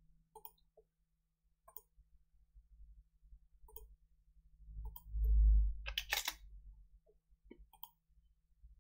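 Computer mouse clicks, single sharp clicks every second or so, with a quick run of keyboard keystrokes about six seconds in as a dimension value is typed. Just before the keystrokes there is a low thump.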